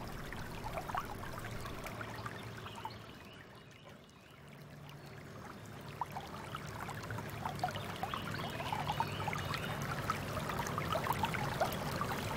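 Shallow river water flowing and trickling, with small splashes. It dips lowest about four seconds in, then builds back up.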